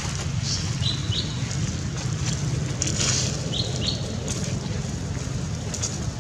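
A bird gives a pair of short, high chirps twice, about three seconds apart, over a steady low hum, with a few brief rustles.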